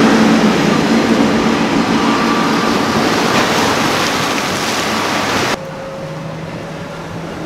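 Outboard engines of a Boston Whaler center-console boat running at speed, mixed with a loud rushing of water and spray that slowly fades as the boat moves off. About five and a half seconds in it cuts abruptly to a quieter, steadier engine drone.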